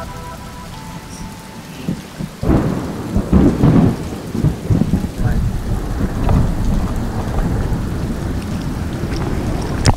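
Rain with a rough, irregular low rumbling on the camera microphone, louder from about two and a half seconds in, after a music bed fades out at the start; a sharp click near the end.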